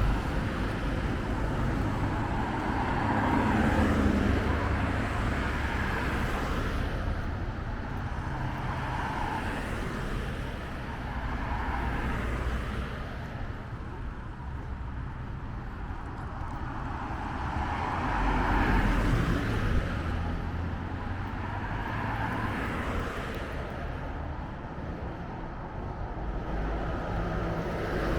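Road traffic: cars passing with a continuous low rumble, swelling louder about four seconds in and again a little after halfway.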